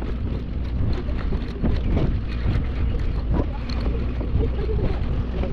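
Wind rumbling on the microphone aboard a boat at sea, over a steady low rumble, with no distinct event standing out.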